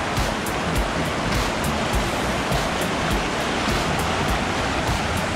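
Fast-moving river water rushing steadily.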